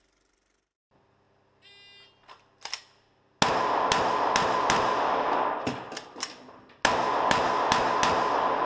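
CZ P-07 9x19 pistol firing two quick strings of shots, the first starting about three and a half seconds in and the second about seven seconds in, each shot followed by the heavy echo of an indoor range. A few faint knocks come before the first shot.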